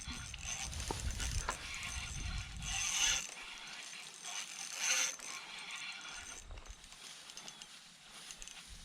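Pflueger President XT spinning reel being cranked, its gears whirring and ticking through the retrieve. Two brief louder hissing bursts come about 3 and 5 seconds in.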